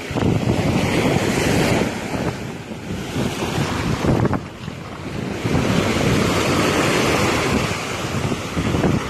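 Surf breaking and washing on a beach, with wind buffeting the microphone; the roar swells and eases, dipping briefly about four and a half seconds in.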